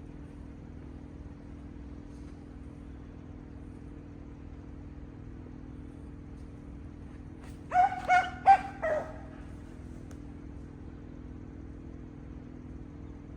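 A dog barking four times in quick succession, about eight seconds in, over a steady low background hum.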